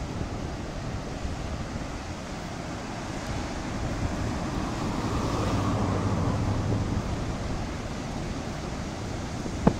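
Water released through a dam's gates rushing and churning in the river below, a steady noise with wind on the microphone. A low hum swells and fades midway, and a single sharp click comes near the end.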